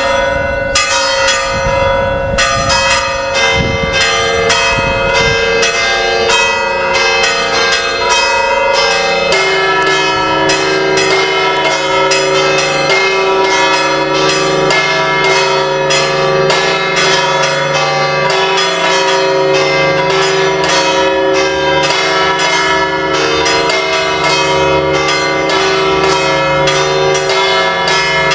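Church bells of the Asunción church in Hellín ringing a continuous peal, strokes following one another rapidly with their tones ringing on and overlapping. A lower bell tone comes in about a third of the way through.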